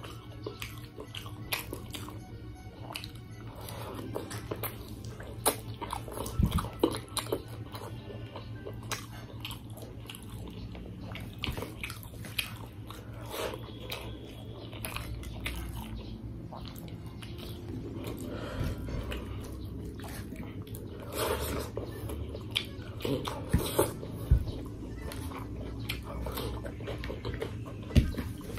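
Close-up eating sounds of a person eating rice and chicken by hand: steady chewing with frequent wet smacks and short clicks. The loudest smacks come a few seconds in, again around two-thirds of the way through, and near the end.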